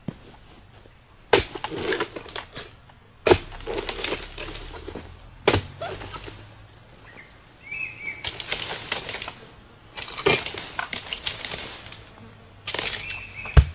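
Oil palm fronds being cut with a long-handled harvesting pole. About seven loud bursts of crackling and rustling, broken by pauses, come as the blade works through the frond bases and the stiff fronds fall. Several sharp knocks sound among them.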